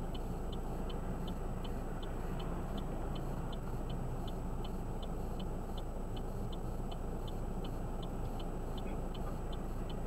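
Car's turn-signal flasher ticking steadily, about two clicks a second, over the low rumble of the car idling at a standstill.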